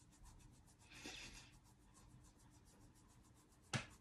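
Faint, quick rhythmic rubbing of fingertips sawing back and forth on facial skin along the laugh lines beside the nose, during a self-massage. There is a soft breath-like swell about a second in and a small click near the end.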